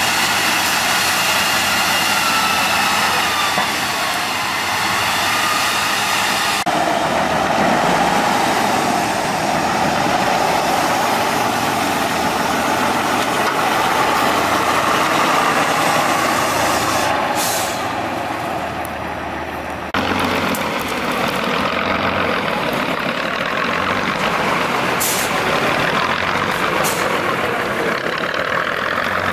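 Heavy off-road trial truck engine running and labouring as the truck crawls over rough ground, its pitch wavering up and down in the first few seconds. There are two short hisses in the second half.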